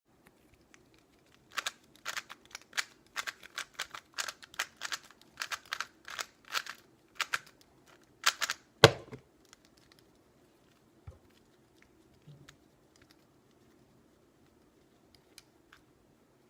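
Rapid plastic clicking of a Rubik's cube being turned fast in a speedsolve, followed by a single loud slap about nine seconds in as the solve ends. A few faint ticks follow.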